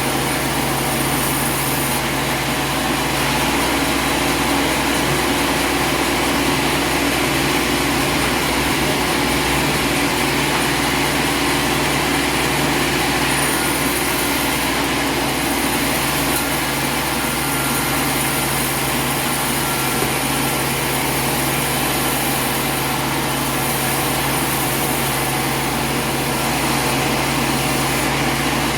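A steady mechanical drone, like an engine running at constant speed, unchanging in level throughout.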